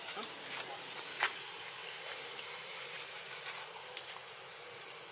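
Steady, even background hiss of outdoor ambience, with a few short soft clicks, the clearest a little over a second in and another near four seconds.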